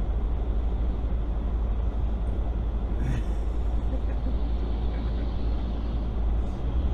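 Steady low rumble of a car driving on a snow-covered road: engine and tyre noise heard from inside the cabin, with a brief faint sound about three seconds in.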